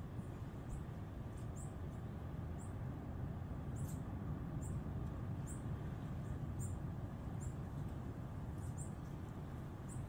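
Short, high-pitched chirps of small animals, repeated irregularly about once a second, over a steady low rumble.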